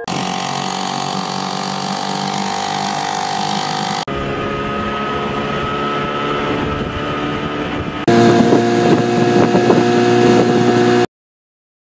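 Outboard motors running steadily with boats under way, in three spliced clips that change abruptly about every four seconds: an Evinrude E-TEC H.O., then a Johnson outboard, then another tiller outboard, which is the loudest. The sound cuts off to silence near the end.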